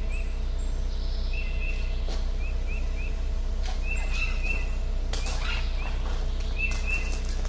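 A small bird chirping in short, repeated rising notes over a steady low hum, with a few scattered clicks.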